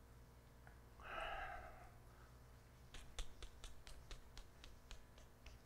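Quiet room sound in a church sanctuary. A short breathy sound comes about a second in, then from the middle a run of quick light clicks, about four a second, lasting a couple of seconds.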